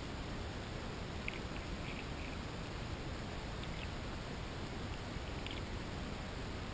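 Grass carp crunching corn kernels and cat kibble with their throat teeth, heard underwater: a few short sharp clicks in small clusters, about a second in, near two seconds, around three and a half seconds and near the end, over a steady hiss.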